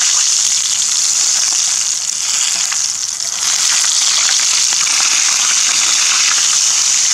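Whole quail deep-frying in hot oil: a steady sizzle with scattered pops and crackles while it is turned with a fork.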